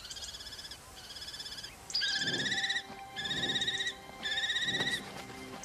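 Common kestrels calling at the nest while an adult brings food to the chicks: five drawn-out, quavering screeches, each under a second long, with short gaps between them.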